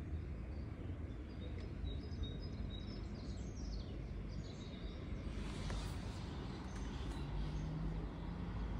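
Small birds chirping over a steady low background rumble.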